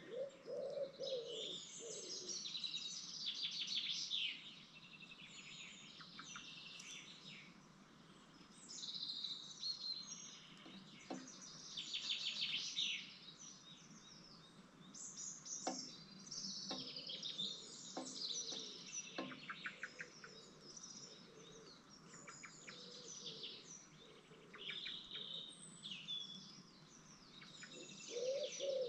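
Songbirds chirping and trilling in high, rapid phrases throughout, with a lower, repeated call near the start and again near the end.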